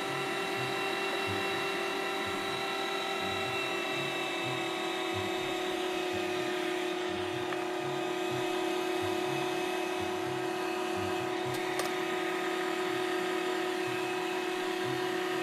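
Electric meat grinder running steadily, its motor whining at one constant pitch while it grinds pizza and pushes it out through the plate.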